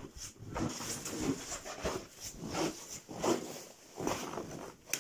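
Footsteps crunching on a snowy floor, about one step every two-thirds of a second.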